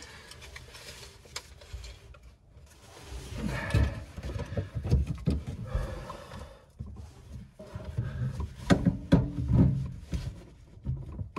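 PVC drain pipe and a tee fitting being handled and pushed into place while being dry-fitted, giving light rustling at first, then a run of knocks and scrapes of plastic from about three seconds in, the sharpest near the end.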